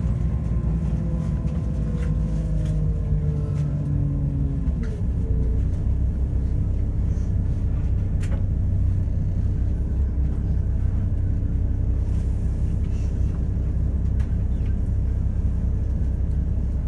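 Inside a Class 172 Turbostar diesel multiple unit under way: a steady drone from its underfloor diesel engine and transmission over the rumble of wheels on track. About five seconds in, the engine note shifts lower and the low hum deepens, with a few faint clicks later on.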